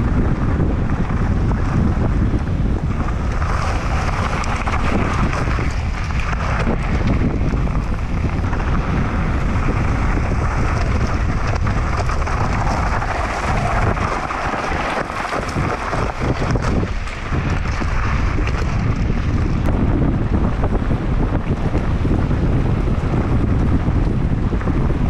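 Heavy wind buffeting on an action camera's microphone during a mountain bike descent at about 50 km/h, mixed with the rumble of knobby tyres on a loose gravel track. The low rumble eases for a couple of seconds about halfway through.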